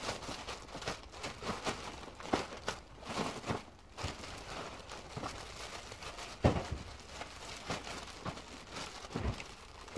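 Clear plastic wrapping crinkling and rustling as it is handled around a suitcase, with a few light knocks, the loudest about six and a half seconds in.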